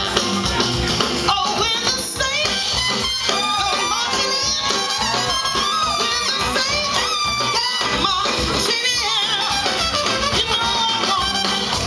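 Live soul band with a horn section, electric guitars and drums playing, heard from the audience. From about two seconds in, a lead vocal sings over the band with a wavering vibrato.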